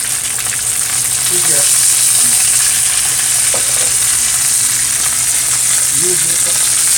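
Bammy (cassava flatbread) frying in a pot of hot oil: a steady, dense sizzle and crackle of oil.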